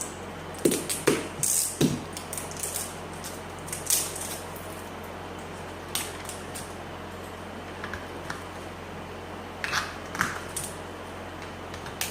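Scattered clicks and rustles of small objects being handled, a few with soft thumps in the first two seconds, over a steady low electrical hum.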